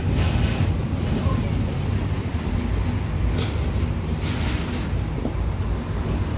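V3A-93-M articulated tram running along its line, heard from inside the car: a steady low rumble of wheels on rails and running gear. A brief higher rushing noise comes about three and a half seconds in.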